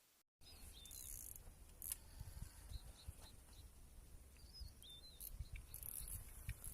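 Outdoor ambience with a bird giving short warbling chirps several times over a low rumble and a few clicks. It starts abruptly about half a second in.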